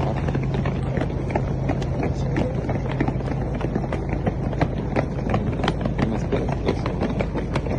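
Many booted feet running and tramping on a paved street: a dense, irregular patter of footfalls over street noise, with a steady low hum that fades about two-thirds of the way through.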